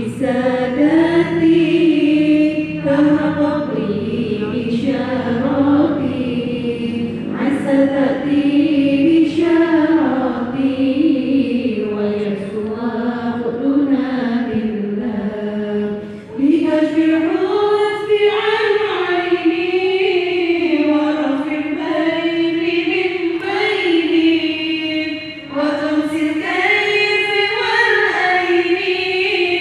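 A group of women chanting Arabic devotional verses in unison, a slow melodic chant with short breaks about halfway and about three-quarters of the way through.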